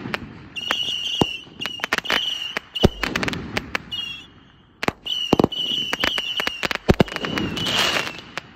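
Aerial fireworks going off in quick succession: a high whistling comes and goes over rapid sharp cracks and several deep booms.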